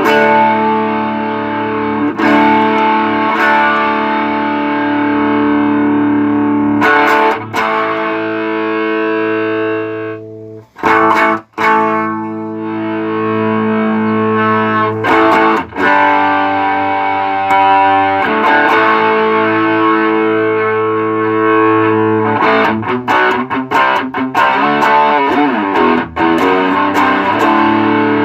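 Electric guitar played through a JHS Double Barrel dual overdrive pedal: overdriven chords left to ring, with a short break about eleven seconds in and choppier, broken-up strumming over the last few seconds. This is a sound test of the pedal after a DC jack replacement and full maintenance for a noise problem.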